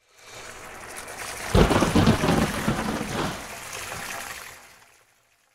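Rain and thunder sound effect: a steady hiss of rain with a loud thunderclap about a second and a half in that rumbles on, then fades out near the end.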